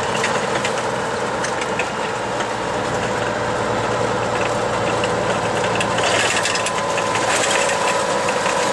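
Log truck's diesel engine running steadily, heard from inside the cab, with scattered clicks and rattles from the truck on the road. It grows slightly louder about six seconds in.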